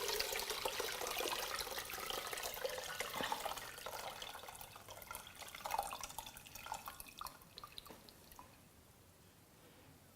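Calamansi juice and water being poured through a strainer, splashing and dripping. The flow tapers to a few last drips and stops about eight seconds in.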